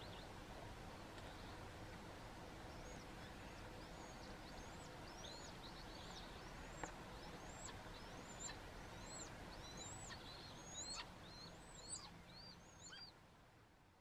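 A bird calling a long series of high, thin notes, each rising then falling, about two a second and quickening slightly, faint over a steady background hiss.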